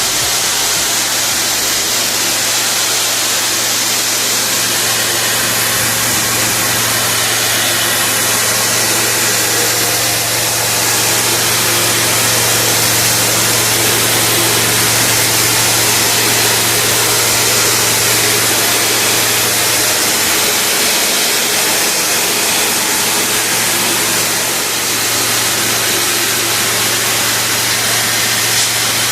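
Pressure washer running steadily: a constant motor hum under the loud hiss of the water jet spraying.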